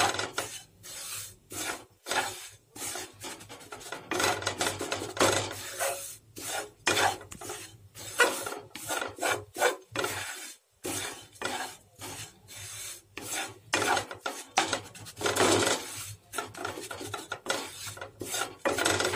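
Wooden spatula stirring and scraping gram flour around a kadhai as the besan roasts in ghee, in repeated, irregular strokes against the pan.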